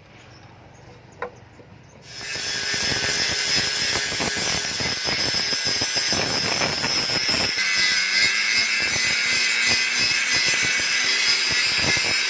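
A power tool running under load. It starts abruptly about two seconds in, with a high whine over dense rasping noise, and the whine shifts lower about halfway through.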